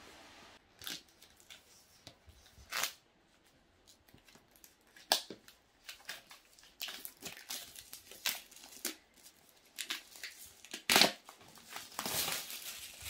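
Apple AirPods Max packaging being unboxed by hand: paper and cardboard tearing and crinkling, with scattered taps and clicks. The loudest tears come about three, five and eleven seconds in, and a longer rustle follows near the end.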